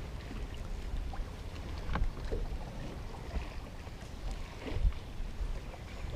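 Wind rumbling on the microphone aboard a small fishing boat, with a couple of faint knocks, the louder one near the end.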